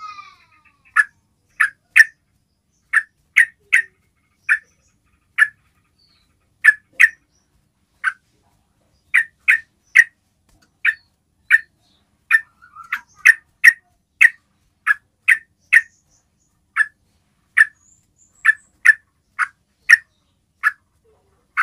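Yellow-vented bulbul giving short, sharp call notes, singly or in quick pairs, about one to two a second. This is the basic trucukan call used to draw an answer from other bulbuls.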